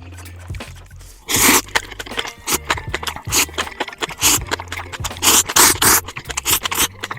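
Close-miked crunching bites and chewing, irregular loud crackles, over background music with a steady bass.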